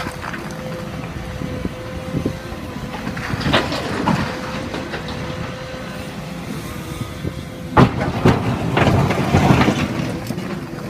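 Caterpillar 312E excavator running, its engine and hydraulics giving a steady whine, with broken bricks clattering in and out of the bucket. The clattering comes a few seconds in, and a louder burst of crashes comes about eight seconds in.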